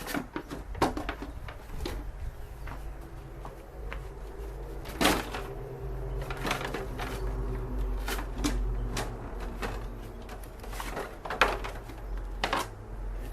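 Irregular clicks, knocks and scraping as a mobility scooter's plastic body cover is handled and worked loose from its Velcro side fastenings, with a steady low hum underneath.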